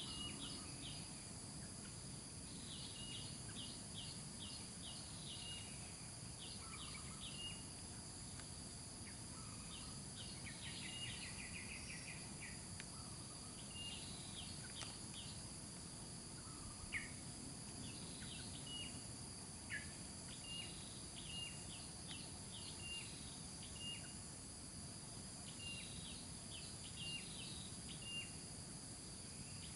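Outdoor ambience: a steady high insect drone, with short high-pitched bird chirps coming in quick runs throughout.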